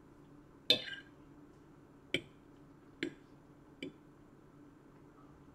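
Metal fork clinking against a ceramic dinner plate while picking up pasta: four short clinks a second or so apart, the first the loudest.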